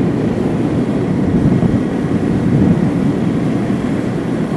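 Steady low rumble of road and engine noise inside a slowly moving car's cabin.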